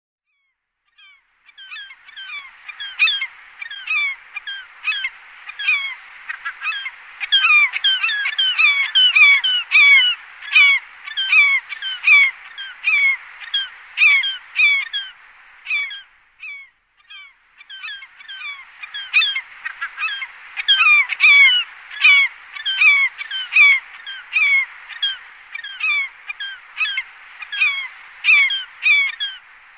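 Glaucous gulls calling: a rapid, dense stream of short, overlapping calls, with a brief pause about halfway through.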